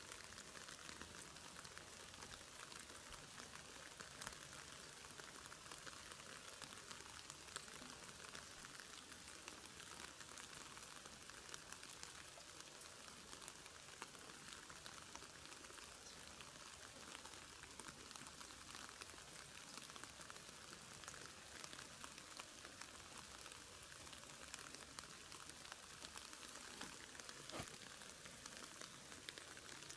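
Faint patter of water drops ticking on grass and leaves over a steady hiss, with one slightly sharper tick near the end.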